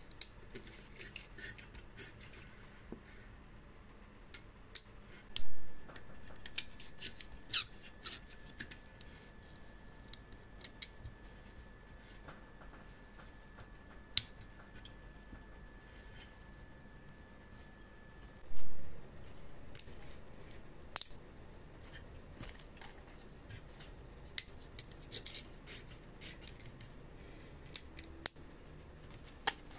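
Hand work at a workbench: many small sharp clicks and snips, like tools or scissors cutting. There are two short loud sounds, about five seconds in and again some thirteen seconds later, with a faint steady high tone running between them.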